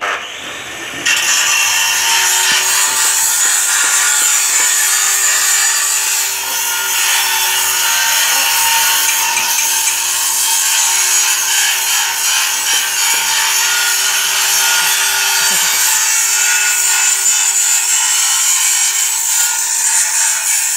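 A power tool working metal in a metalworking shop: a loud, steady rasping noise that starts about a second in, with a steady motor hum beneath it.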